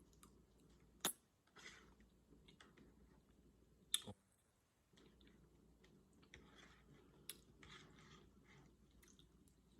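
Faint mouth sounds of a person chewing soft pasta, with two sharp clicks, about a second in and about four seconds in.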